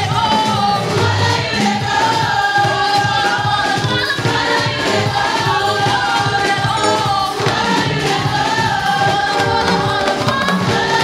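Women's gospel choir singing together into handheld microphones, backed by a live band with drum kit and keyboard.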